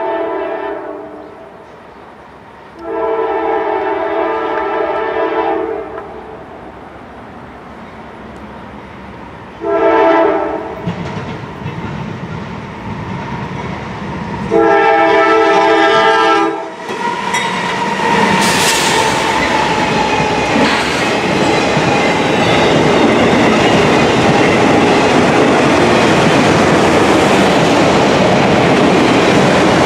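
Norfolk Southern GE Dash 9-44CW diesel locomotive sounding its multi-note air horn: the end of one blast, then a long, a short and a long blast, the grade-crossing signal. From about 17 s in, the locomotive passes close with a loud diesel engine and wheel rumble, and the auto rack cars follow with clattering wheels over the rail joints.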